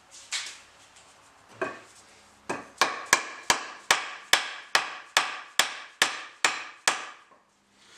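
A mallet striking the end of a wooden axe handle, driving the axe head onto the handle. Two single knocks come first, then about a dozen quick, sharp blows, roughly two and a half a second.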